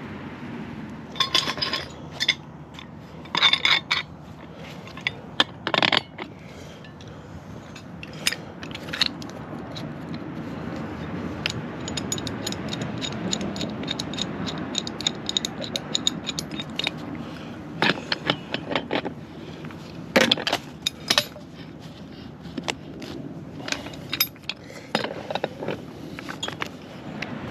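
Metal tools and pipe fittings being handled: an irregular series of sharp clinks and scrapes, a few of them ringing briefly, over a steady low background rumble.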